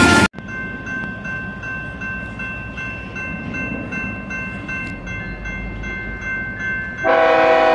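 Railroad crossing bell ringing steadily at about three strikes a second as a freight train approaches. About seven seconds in, a diesel locomotive's air horn comes in loudly over the bell.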